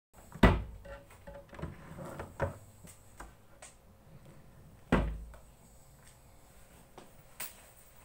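Several knocks and thumps from objects being handled close to the microphone. The loudest comes about half a second in and another about five seconds in, with lighter knocks between and a small tap near the end.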